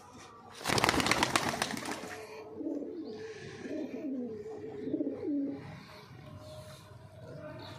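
Domestic pigeon's wings flapping in a loud burst of quick beats about a second in, followed by pigeons cooing.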